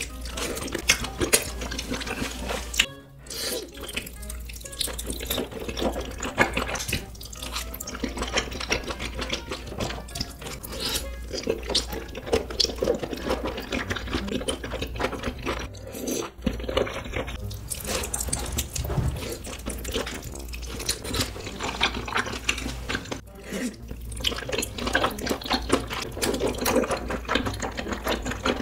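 Close-miked eating: wet slurping and chewing of wide noodles in thick spicy sauce, a dense run of quick, sticky mouth clicks and smacks.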